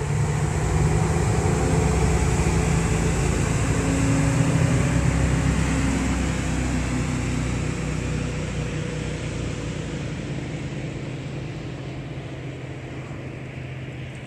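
Jet boat engine running loud and steady, then fading gradually over the second half as the boat moves away.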